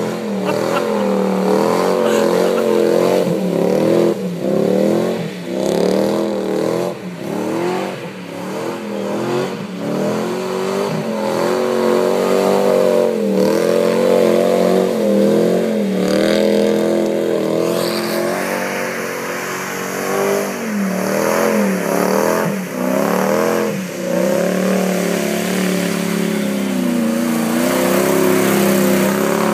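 Lifted Toyota Hilux pickup's engine revving hard again and again, its pitch surging up and dropping back with each burst of throttle as the truck spins its mud tyres through a muddy paddock.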